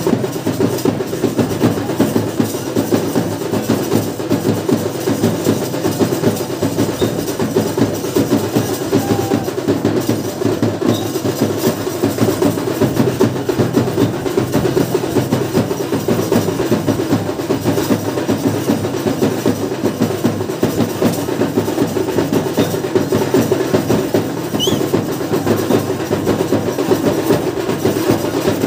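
Drums beaten in a fast, unbroken rhythm of dense, rapid strokes.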